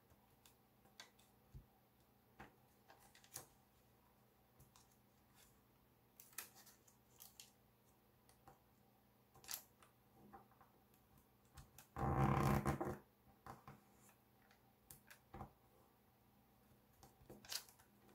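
Gold foil origami paper being folded and creased by hand: faint, scattered crinkles and taps, with one louder burst lasting about a second about twelve seconds in.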